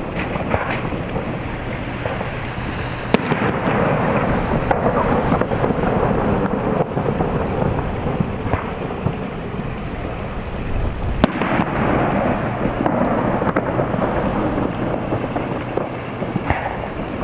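Aerial firework shells bursting in rapid succession, their booms running together into a continuous rumble, with two sharp cracks about three seconds in and about eleven seconds in.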